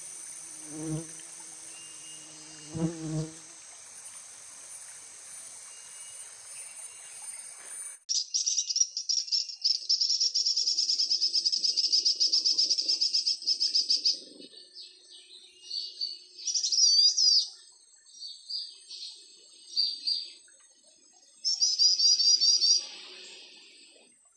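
Recorded calls of the great iora (cipoh jantung) played from a Bluetooth speaker as a trapping lure. A sudden rapid high trill starts about a third of the way in and runs for about six seconds, then scattered chirps, then a second trill near the end. Before the trill there is a steady high hum and two short low chirps.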